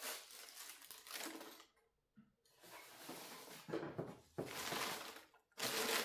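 Packaging being handled and crumpled up: irregular bursts of crinkling and rustling, several in a row.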